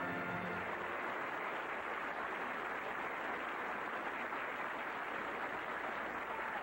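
Large audience applauding steadily, with the tail of band music dying away in the first second.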